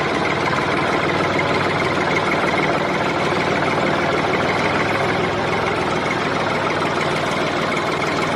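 Steady, unbroken engine-like running noise from a toy vehicle, with no change in pace.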